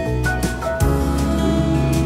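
Gentle background music, with a change of chord just under a second in.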